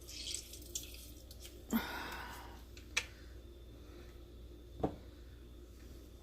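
Lemons being squeezed by hand, juice dripping and squirting into a jar. Three short sharp clicks about two, three and five seconds in, the first followed by a brief splash.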